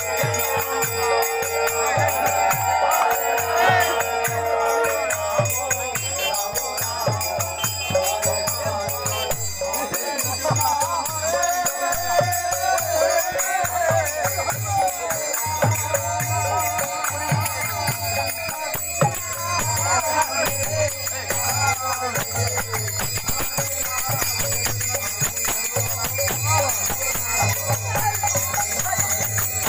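Bengali kirtan music: voices singing a devotional chant over a steady, dense jangle of hand cymbals and a drum beat.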